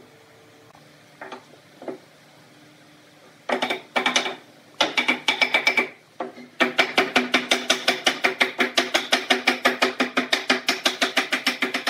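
Wooden mallet knocking a glued wooden chair rail onto its back panel, with a woody ring to each blow. A few separate knocks give way, about halfway in, to fast, even tapping at about five blows a second.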